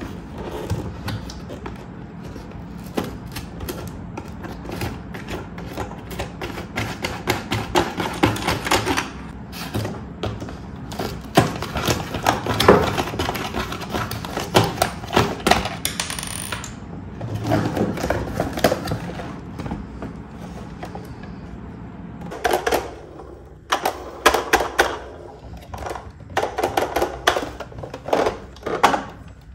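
Cardboard packaging being handled and pulled apart: rustling and scraping with many small irregular clicks and taps. Near the end, knocks and clicks from a plastic toy school bus being handled.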